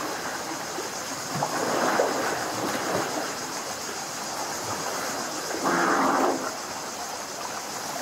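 Swimmers splashing and stroking through water in a rock pool, with bursts of splashing about a second and a half in and a louder splash around six seconds, over a steady hiss of water.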